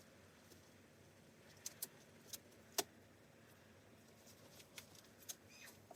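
Near silence broken by a handful of faint, sharp clicks, four of them between about one and a half and three seconds in, then a few softer ones near the end.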